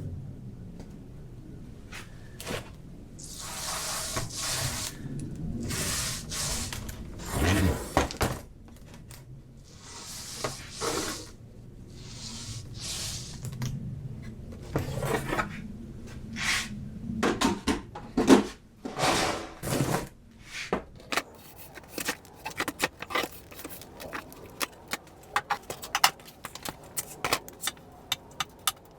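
A roller spreading melted beeswax over plastic beehive frame foundation, in several hissing strokes of about a second each, followed by many short clicks and knocks as the frame and roller are handled.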